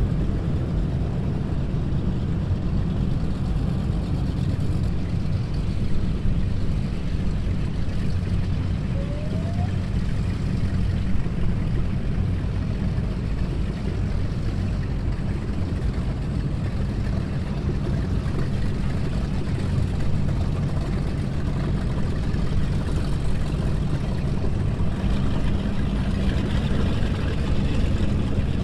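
Performance powerboat engines idling, a steady low engine sound with no revving.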